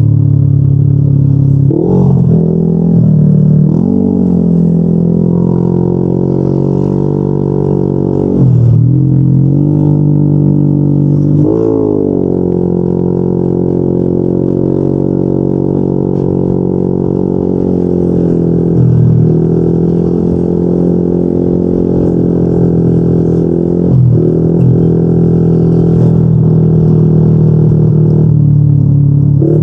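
Yamaha NMAX 155 scooter's single-cylinder four-stroke engine running through a Yoshimura RS2 aftermarket exhaust while riding. It holds a steady deep drone, and the pitch dips and climbs back several times as the throttle is eased off and opened again.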